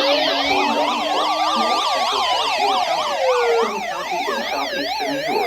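Several emergency sirens sounding at once: a slow wail rising and falling in pitch over fast yelping sweeps of about two a second. The slow wail fades out about two-thirds of the way through, leaving the fast yelp.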